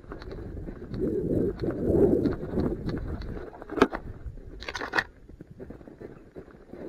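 Footsteps crunching through snow and dry brush scraping against clothing and gear, with a few sharp twig snaps or clicks, the sharpest a little under four seconds in.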